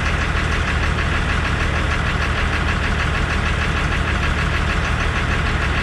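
A vehicle engine idling steadily, with a fast, even pulsing and a strong low hum.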